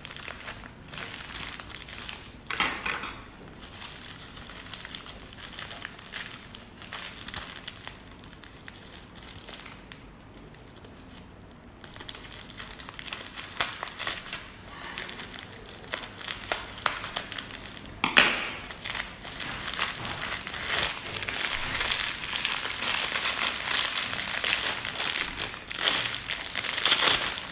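Parcel packaging crinkling and rustling as it is torn open and unwrapped by hand, with a few sharp cracks. It is quieter in the middle and grows busier and louder near the end.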